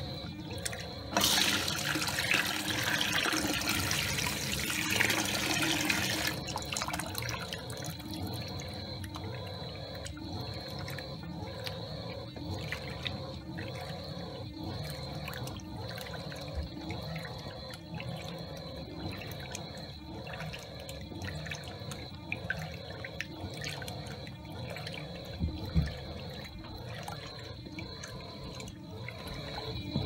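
Fisher & Paykel Pride top-loading washing machine agitating a load, water sloshing in the drum in a steady back-and-forth rhythm. From about one to six seconds in, a loud hiss of rushing water rises over the sloshing, then stops.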